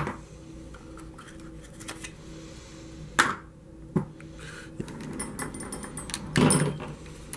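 Hands handling an RC truck and its tools: a few sharp knocks and clatters, the first right at the start, then about three seconds in and at four seconds, and a longer rattle around six and a half seconds. A faint steady hum runs underneath.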